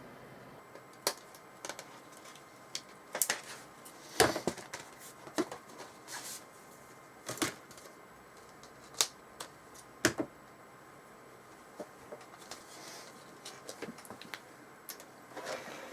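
Irregular sharp clicks and taps, spaced unevenly a second or so apart, some followed by a brief rustle, over a low steady background hum.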